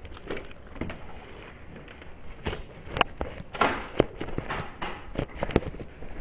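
Irregular sharp knocks and clicks, with a brief rustling burst about three and a half seconds in.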